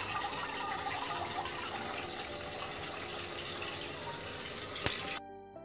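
Gulab jamun balls deep-frying in oil in a kadai, a steady sizzle, with one short knock near the end. The sizzle then cuts off suddenly and soft piano-like music begins.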